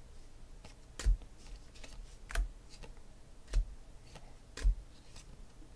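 2016 Panini Phoenix football cards being flipped through in the hand, a sharp tap or snap about once a second as each card is slid off the stack, four louder ones with fainter clicks between.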